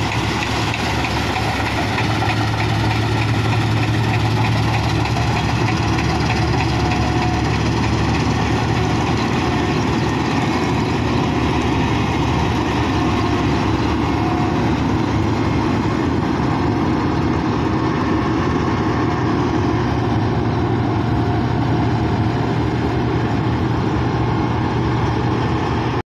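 Combine harvester running steadily while cutting wheat: a continuous engine drone with a strong low hum.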